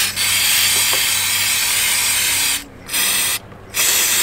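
Aerosol can of brake cleaner spraying onto a motorcycle brake caliper to clean it: a long hiss, a brief pause, a short burst, another pause, then a long hiss again.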